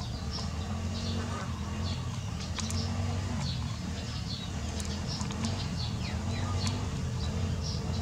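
Eurasian tree sparrows chirping: a string of short, high chirps, about one a second, over a steady low hum.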